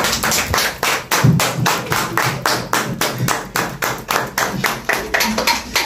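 Hands clapping in a steady, quick rhythm, about five or six claps a second.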